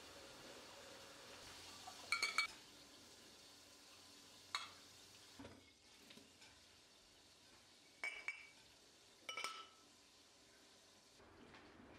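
Glass cups being set down upside down on a drying mat, giving four short, ringing clinks of glass, spread across several seconds.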